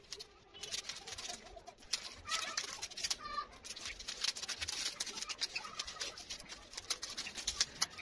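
Plastic sleeve crackling and rustling as it is peeled off a wooden broom handle, with a couple of short bird chirps.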